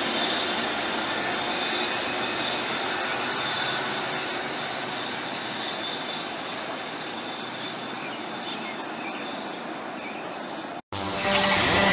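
CapeFlyer passenger train running away down the track, its rail noise slowly fading as it recedes, with a thin steady high tone running under it. About eleven seconds in it cuts off abruptly and electronic music begins.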